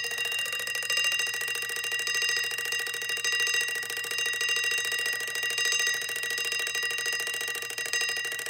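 Westclox Big Ben mechanical wind-up alarm clock from 1964, its alarm bell ringing continuously as a fast, even trill of strikes, with its alarm selector set to 'soft'.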